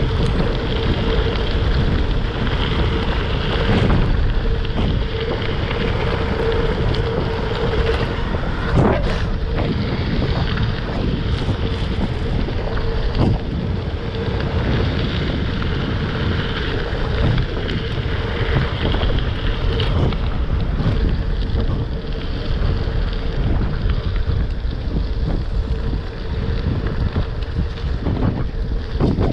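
Wind buffeting the microphone of a GoPro mounted on a gravel bike riding fast down a gravel road, with the tyres rumbling over the gravel and scattered small knocks and rattles from stones and the bike.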